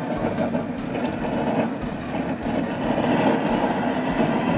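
Gas burner running steadily under a large pot of boiling crawfish, a continuous even noise.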